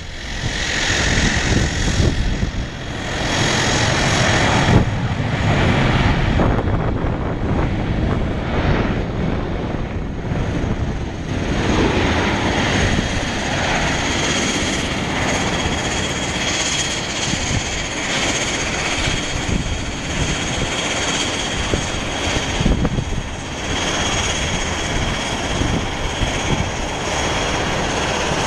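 Airbus A320-214's CFM56 jet engines during the landing rollout. A loud, uneven rush of engine noise fills roughly the first dozen seconds as the airliner slows down the runway, then it settles into a steadier sound with a thin high whine.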